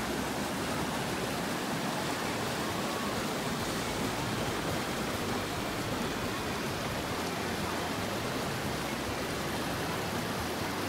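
Steady, even rushing of water pouring down a stone channel over a spill.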